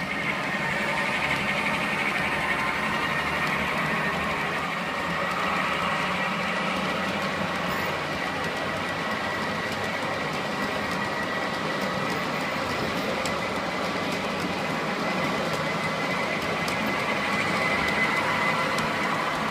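G-scale model freight train rolling past on its track, a steady rumble and rattle of wheels on rail with a thin steady whine.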